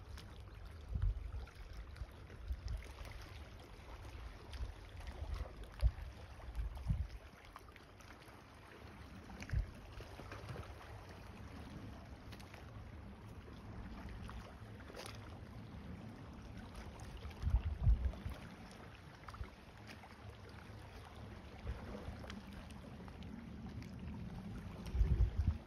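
Wind buffeting the microphone of a handheld phone in irregular low rumbles, thickest in the first few seconds and again briefly near the middle and the end, over faint steady outdoor hiss.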